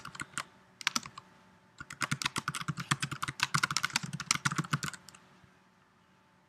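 Typing on a computer keyboard: a short run of keystrokes, a pause of about a second with a couple of stray strokes, then a longer run of fast typing that stops about five seconds in.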